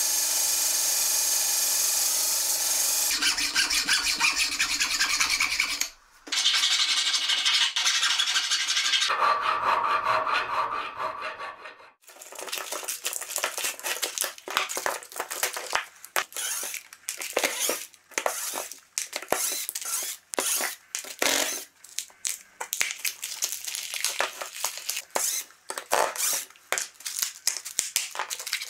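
Delta belt sander running as a metal rod is ground against the belt, a steady loud grinding noise that changes in tone every few seconds and stops about twelve seconds in. After it stops come irregular clicks, knocks and scrapes of wood and metal: a wooden mould is unclamped and a cured burlap micarta block is pried out of it with a screwdriver.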